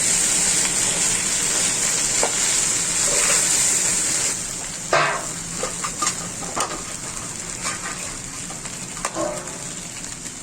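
Fried rice sizzling in a hot pan while being stirred. The sizzle is strong for about four seconds, then quieter, with scattered scrapes and knocks of the spatula against the pan.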